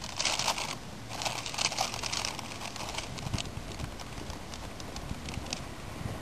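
Plastic bag of powdered groundbait crinkling in two rustly spells as it is torn open and handled, then scattered light clicks and taps as the bag and a small cup are handled.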